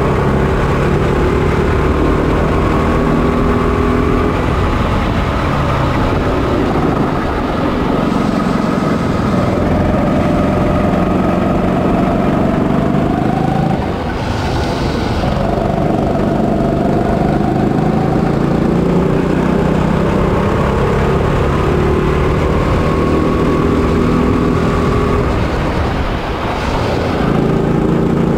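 Onboard sound of a kart's GX200 200cc single-cylinder four-stroke engine under race load, its pitch rising and falling as it accelerates down the straights and eases off into corners. It dips briefly about halfway through and again near the end.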